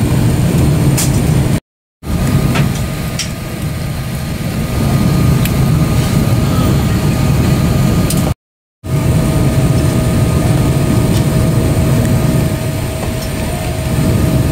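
Steady low rumble of an airliner cabin on the ground, with a faint steady hum above it. The sound cuts out briefly twice.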